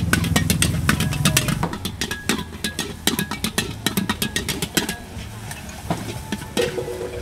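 Metal ladle and spatula clanging against a steel wok in quick, drum-like strikes, about four or five a second, as noodles are tossed and stir-fried. A low rumble underneath falls away about a second and a half in, and the clanging thins out after about five seconds.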